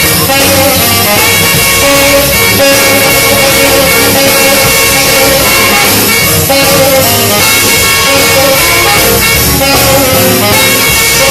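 Live swing jazz from a small band: two saxophones play over acoustic guitar and drums, continuous and loud.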